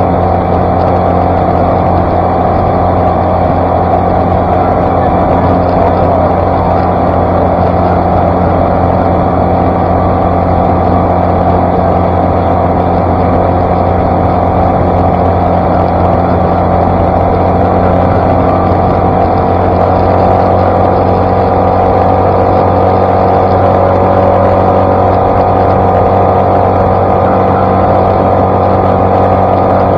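Outboard motor on a small flats skiff running steadily at high speed with the hull planing, along with water rushing past the hull.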